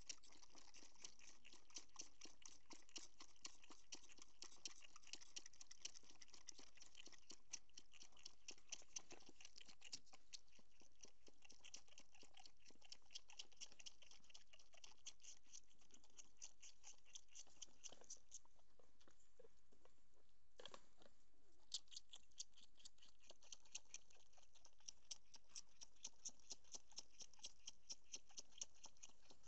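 Goat kids sucking on bottle teats, a fast, steady run of wet sucking clicks, several a second, with a brief pause about two-thirds of the way through before the sucking resumes.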